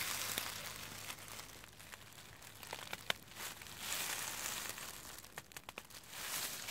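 Dry fallen leaves and grass rustling and crackling close to the microphone as someone moves among them, in a few swells with scattered sharp crackles.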